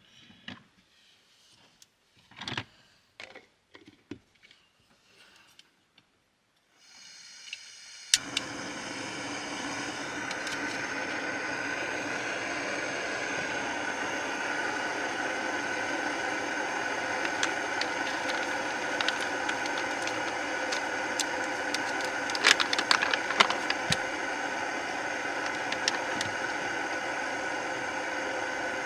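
A few small handling clicks and taps, then gas beginning to hiss, a sharp ignition click about eight seconds in, and a gas stove burner lighting and running with a steady hiss to heat water. A few light clicks or ticks come through the burner hiss about two-thirds of the way through.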